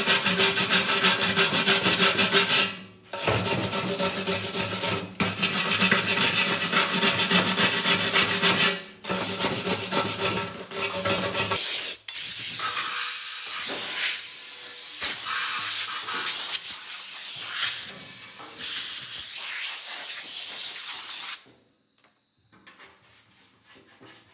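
Rust being scrubbed off the fuel tank's threaded outlet with a power tool: a steady motor hum under continuous scratching, with two short breaks. Then a harsher, hissing scrub without the hum, which cuts off suddenly a few seconds before the end.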